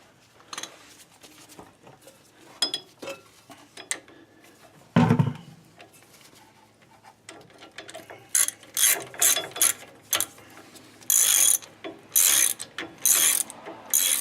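Hand ratchet wrench clicking in quick repeated strokes as nuts are run down, the strokes coming steadily from about eight seconds in and getting louder near the end. Before that, scattered light tool clinks and one loud metal clunk about five seconds in.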